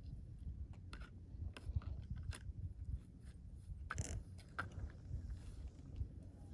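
Snow ambience: a steady low rumble under scattered short crunches and scrapes on snow, the loudest a brief scrape about four seconds in.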